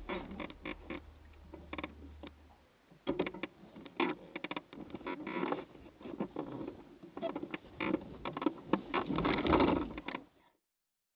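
Dry leaves and gravel crunching and rustling in irregular clusters as boots and tyres shuffle over a leaf-strewn dirt track. A low steady hum stops a little under three seconds in.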